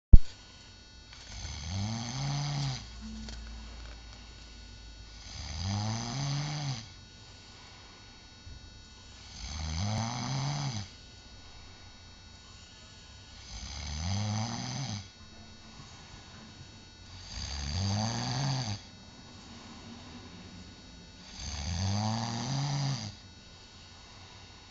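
Snoring: six long, loud snores about every four seconds, each rising and then falling in pitch, with quieter breathing between them. A sharp click at the very start.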